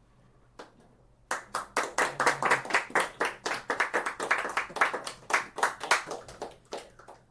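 A group of people clapping, starting about a second in and dying away near the end.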